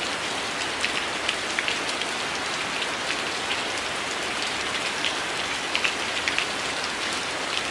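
Steady rain falling on a window: a constant hiss with many scattered sharper drop ticks.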